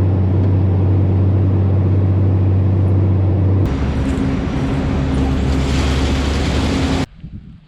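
Tractor engine running steadily, cut abruptly about halfway through to a deeper-sounding engine; it stops suddenly near the end, leaving only faint rustling.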